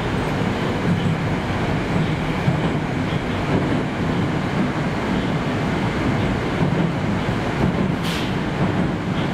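A 'Moskva' 81-765 metro train running, heard from inside the passenger car: a steady rumble of wheels and running gear, with a brief hiss about eight seconds in.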